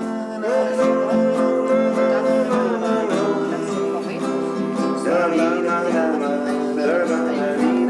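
Acoustic guitar played with a man singing along in long held notes.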